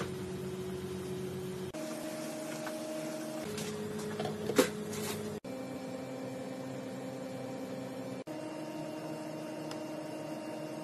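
A steady hum of held tones whose pitch jumps at several abrupt cuts, with a short sharp clink about four and a half seconds in.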